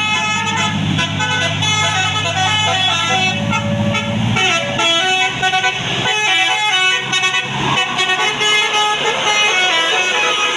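Tour bus's multi-note telolet basuri horn playing a quick tune of stepping notes, with the bus engine running under it for the first four seconds or so.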